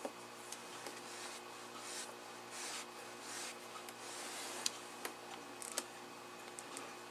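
Soft swishes of a paintbrush working watercolor paint on a ceramic palette, with a few light, sharp taps of the brush against the palette about two-thirds of the way through.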